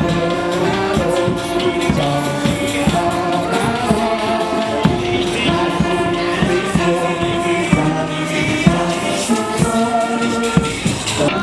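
Brass band with tuba, brass horns and clarinet playing a lively tune in full chords over a steady beat.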